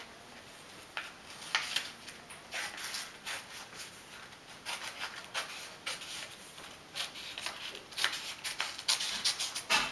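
Sheet of paper rustling and rubbing as it is handled and creased by hand, in short irregular scratchy strokes.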